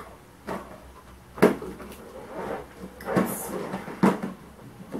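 Hollow plastic clacks and knocks as a toy kitchen set is folded shut into its plastic carry case: a handful of sharp knocks, the loudest about a second and a half in.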